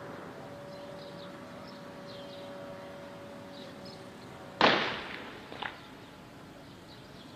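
A single sharp bang about halfway through that echoes away over about a second, followed by a fainter crack a second later: distant gunfire in street fighting. Before it, a faint steady hum.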